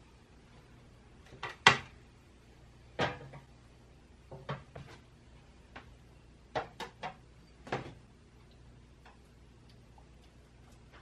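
Glass pudding cups knocking and clinking as they are set down and shifted on a metal baking tray: a scattering of separate sharp knocks, the loudest about two seconds in, with a quick cluster of three a little past halfway.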